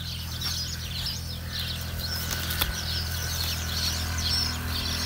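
Fresh coriander stems being picked and cut by hand, giving a run of small clicks and snaps with a sharp one about halfway through, over birds chirping and a steady low hum.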